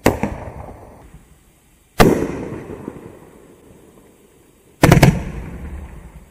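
Winda 'Jellyfish Aquarium' 9-shot fireworks rack firing: sharp bangs, one at the start, one about two seconds in and a quick double near five seconds, each trailing off in a rumbling echo.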